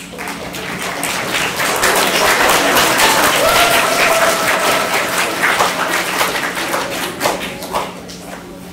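Audience applauding, building up over the first couple of seconds and dying away near the end.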